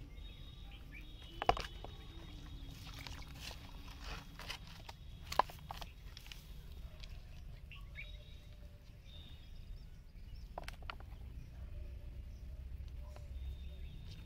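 Handling noise as a fish is unhooked over a plastic basin: scattered light clicks and two sharp knocks, one about a second and a half in and one about five seconds in, over a low steady outdoor rumble, with a faint high whistle-like tone coming and going.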